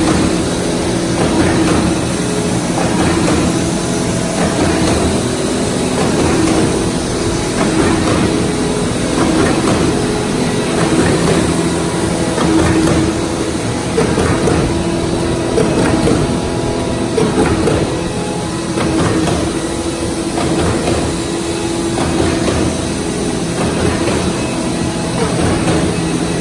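Industrial meatball forming and cooking line machinery running: a loud, steady hum with a few held tones and a continuous irregular mechanical clatter.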